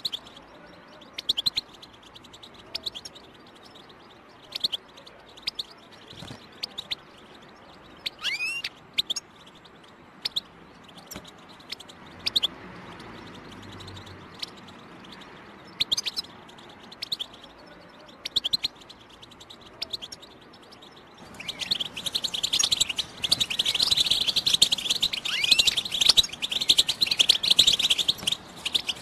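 European goldfinch calling: scattered short chirps and a rising whistled note for the first twenty seconds, then a dense, fast twittering run of song from about two-thirds of the way in. This is the chattering 'btbta' call used to stimulate captive goldfinches to sing.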